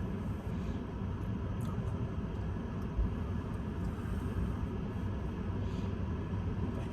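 Steady low rumble of a running vehicle, with one short thump about three seconds in.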